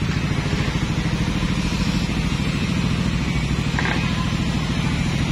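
Motorcycle engine idling steadily with a fast, even low pulse.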